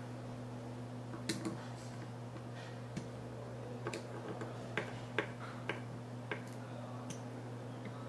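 Small screwdriver turning the screws that fasten an EK full-cover water block to a graphics card: scattered light metallic clicks and ticks, irregularly spaced, over a steady low hum.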